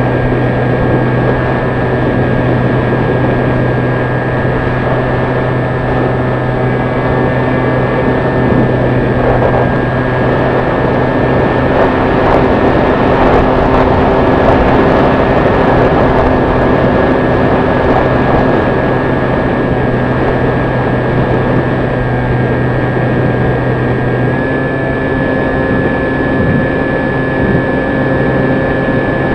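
Hobby King Sky Eye's electric motor and pusher propeller running steadily as heard from the onboard camera, with a steady whine over rushing airflow noise that swells in the middle. The motor's pitch steps up slightly near the end.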